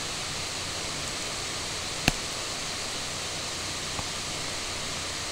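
Steady microphone hiss with a faint low hum, broken by one sharp click about two seconds in and a fainter click near four seconds.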